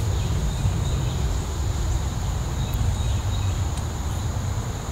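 Steady high-pitched drone of insects over an uneven low rumble.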